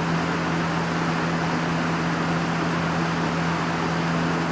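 1990s Galaxy 3723 box fan running on high: a steady rush of air with a constant low motor hum.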